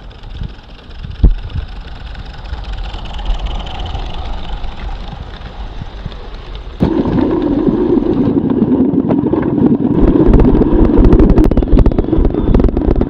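Garden-scale live steam train running on outdoor track, its cars rattling along the rails. About seven seconds in, the sound jumps to a much louder close rumble with rapid clicking of wheels over the track.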